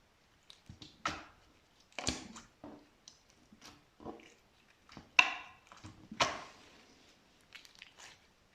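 Slime being squeezed and pressed by hand, making irregular short pops and squelches, the loudest about five and six seconds in.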